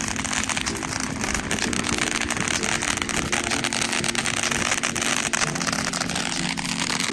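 A long string of firecrackers going off continuously: a dense, unbroken crackle of rapid bangs.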